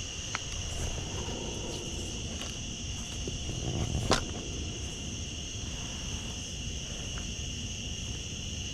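Steady chorus of insects, an unbroken high-pitched trill, with a single sharp click about four seconds in.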